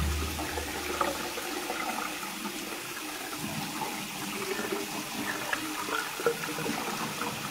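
Running water: a steady, even rush with no break.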